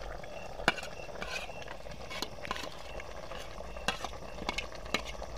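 A metal serving spoon scraping and knocking against a plate several times as chopped coriander is pushed off it into the pot, over the steady sizzle of chicken stew simmering.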